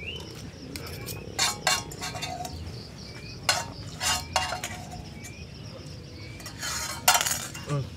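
Metal spoon scraping and clinking against a small frying pan, gathering up the last of the noodles: several short scrapes and clinks with a ringing tail, the longest near the end.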